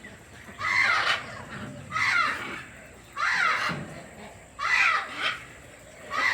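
Poultry calling loudly: a series of harsh, squawking calls, about five of them, each roughly half a second long and coming about every second and a half.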